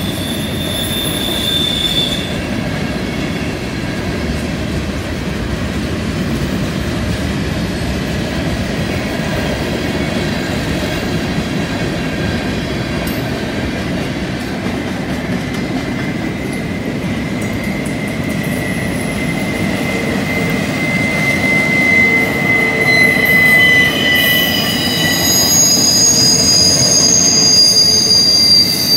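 CN freight train cars rolling past on a curve: a steady rumble of wheels on rail, with high-pitched wheel flange squeal that comes and goes. Several squealing tones sound at once, and the squeal grows louder near the end.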